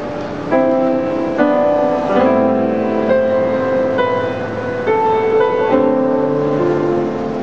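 Grand piano and acoustic guitar playing an instrumental duet, with sustained chords and melody notes changing every second or so.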